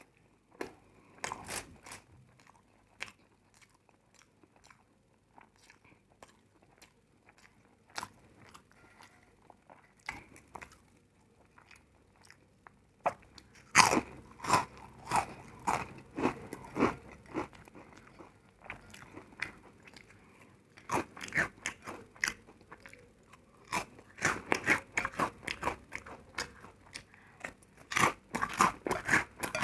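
Close-up eating sounds: a person biting and chewing crunchy food. The crunches are sparse at first and come in loud, rapid runs from about halfway through.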